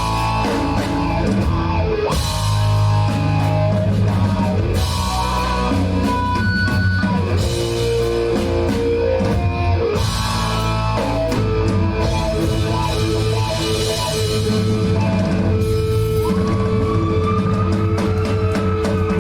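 Rock band playing a song live, with guitars and a drum kit.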